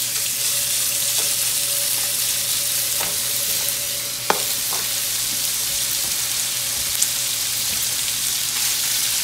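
Chopped raw bacon sizzling in hot vegetable oil in a frying pan, a steady crackling hiss. A sharp knock comes about four seconds in, with a few fainter clicks.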